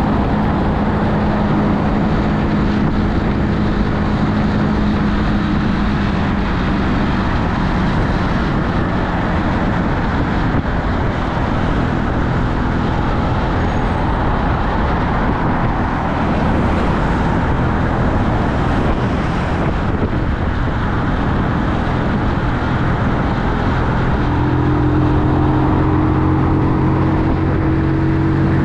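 Keeway Superlight 125 cruiser motorcycle's engine running at road speed, with a steady rush of wind noise on the microphone. The engine note sinks under the wind through the middle and comes back near the end, rising slightly in pitch as the bike picks up speed.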